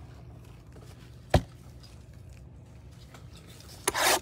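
One sharp tap about a second in, then near the end a short rustling scrape as a plastic-wrapped trading-card hanger box is slid onto the table mat.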